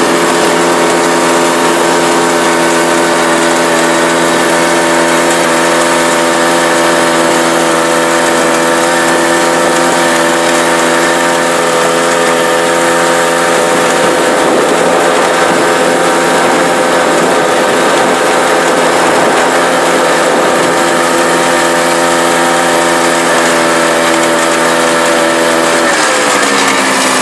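Snowmobile engine running at a steady speed while towing a sleigh, loud, with a steady hiss over it. Near the end its pitch drops as it slows down.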